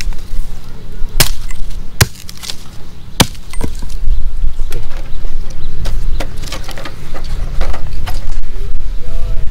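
Three sharp knocks in the first few seconds, then a run of lighter clicks and clattering, over a steady low rumble.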